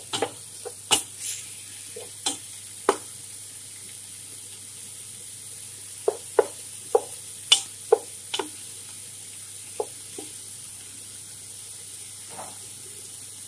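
Chicken pieces frying in curry powder, onion and garlic as they brown, with a faint steady sizzle. A wooden spatula stirs them, knocking and scraping against the pan in irregular strokes, most of them between about six and eight and a half seconds in.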